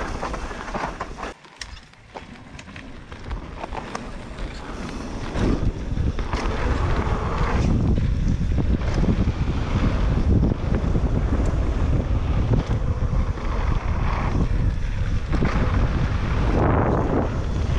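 Wind buffeting the microphone and tyres rumbling over a dirt trail as a downhill mountain bike descends, with scattered sharp knocks and rattles. The rush dips briefly about a second and a half in, then builds to a loud, steady level by about six seconds.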